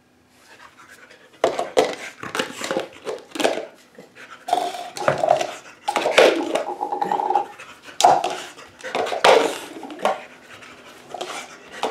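A dog panting while it picks up small plastic nesting cups and drops them into a plastic bucket, the cups clattering and knocking against each other in a string of short sharp clacks.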